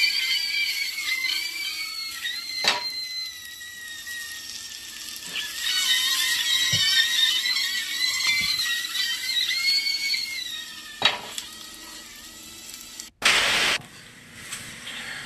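Sausages frying in a pan, giving off thin, high whistling squeals that waver in pitch, over a faint sizzle. Near the end there is a short, loud rush of noise.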